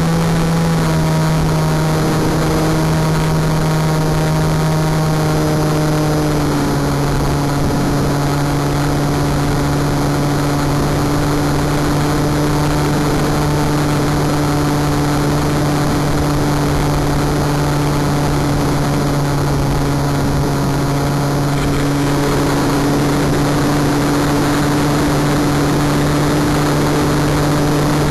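Wing Dragon 4 RC plane's motor and propeller running at a steady pitch in flight, stepping down slightly about six seconds in and then holding, over a constant rush of wind.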